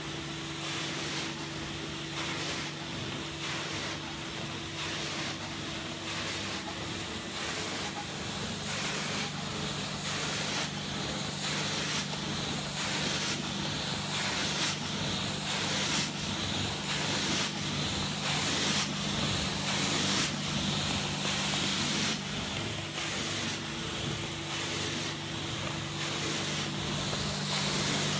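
Hot-water extraction carpet cleaning machine running, a steady motor hum under the hiss of water spray and suction as the wand is drawn across the carpet.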